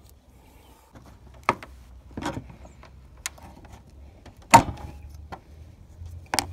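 Plastic push-pin retainer clips on a Ford F-150's radiator cover clicking and snapping as they are pried loose and pulled out with pliers and a screwdriver. A handful of sharp, separate clicks, the loudest about four and a half seconds in.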